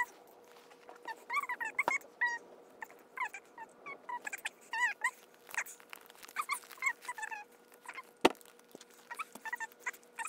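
A voice played back at four times speed, turned into short, high-pitched chipmunk-like chirps that follow one another all through. There are two sharp knocks, the louder one about eight seconds in.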